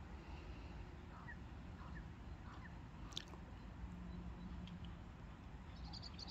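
German shepherd digging in soil: faint scratching and crunching of earth, with a few short faint chirps and a single click about three seconds in.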